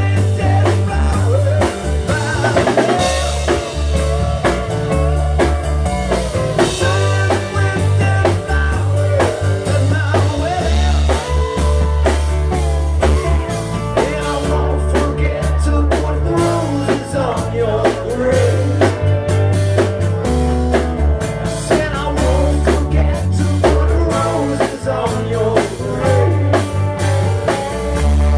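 Live rock band playing loud, with a drum kit, guitar and a heavy bass line.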